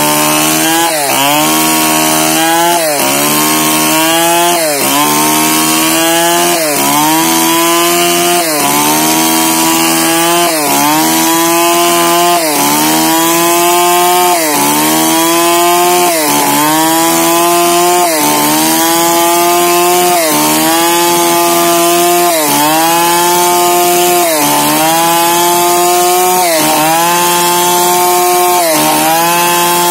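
Two-stroke chainsaw ripping lengthwise through a log to slab it into boards, running at high revs under load. Its engine pitch dips and recovers about every second and a half as the bar bites into the cut.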